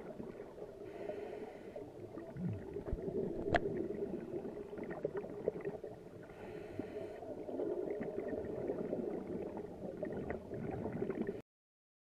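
Muffled underwater sound picked up through a camera housing: a low rumble with scattered faint clicks, and two brief bursts of bubbling from a scuba diver's regulator about five seconds apart. The sound cuts off suddenly near the end.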